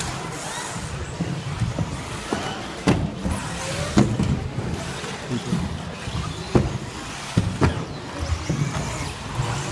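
Electric 1/10-scale two-wheel-drive RC buggies racing on an indoor track: a steady mechanical whir of motors and tyres, broken by repeated sharp knocks and clatters as the cars land off jumps and bang into the track.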